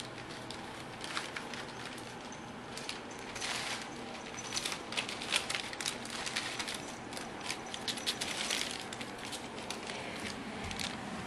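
Brown packing paper crinkling and rustling in irregular crackles as kittens pounce and tumble in it, busier from about three seconds in.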